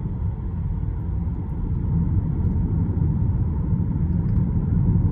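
Steady low road and tyre rumble inside the cabin of a moving Tesla Model 3 Performance, growing slightly louder near the end.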